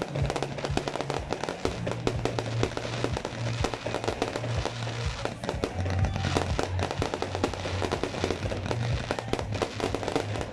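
Aerial fireworks going off in a rapid, continuous barrage of bangs and crackles, many reports a second. Music with a steady, shifting bass line plays under it.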